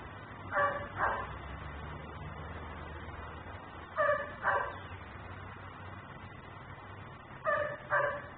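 German Shepherd barking in pairs: two barks about half a second apart, repeated three times, about every three and a half seconds.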